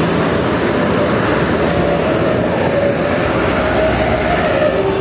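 Heavy road vehicles, buses and trucks, passing close by: a steady loud rush of engine and tyre noise. A faint drawn-out tone that sinks slightly in pitch sounds from about halfway to near the end.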